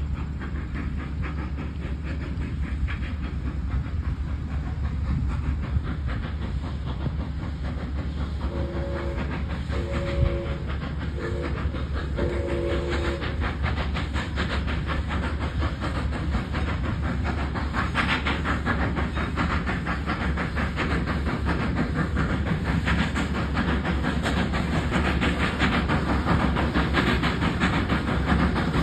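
Steam locomotive running with a rapid, steady chuff of exhaust, growing louder as it approaches. About a third of the way in, its two-tone steam whistle blows two long blasts, a short and a long: the grade-crossing signal.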